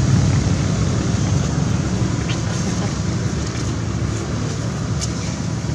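Steady, choppy low rumble of wind buffeting the microphone, with a hiss above it.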